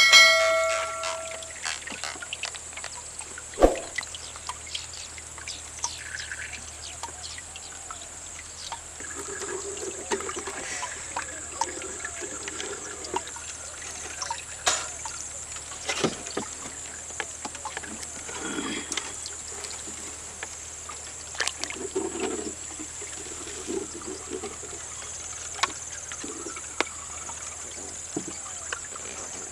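Fish and cast net being handled in a small wooden boat on the water: scattered knocks, clicks and net rustles, with water trickling and dripping. A steady high hiss runs underneath, and a short bright chime sounds at the very start.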